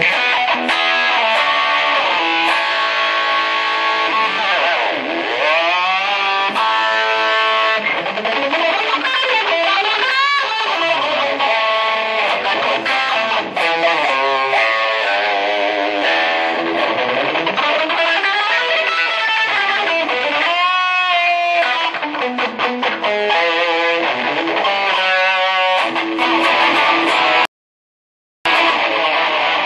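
Electric guitar played through a Marshall amp: fast lead lines with pitch bends and wide vibrato, and a deep swoop down and back up in pitch about five seconds in. The sound cuts out completely for about a second near the end.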